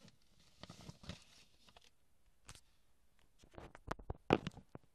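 Light handling sounds of a brown paper envelope and cards: soft rustles and small taps, with a louder burst of rustling about four seconds in.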